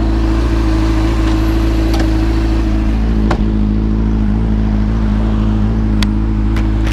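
Sport motorcycle engine running at a steady idle, with a few short sharp clicks in the middle and near the end.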